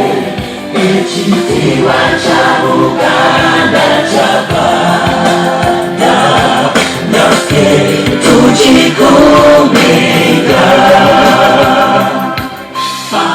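A group of schoolchildren singing a song together, choir style, loud and continuous.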